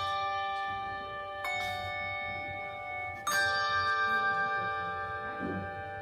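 Handbell choir ringing chords on brass handbells. A new chord is struck about a second and a half in and another, louder one about three seconds in, each left to ring on and fade slowly.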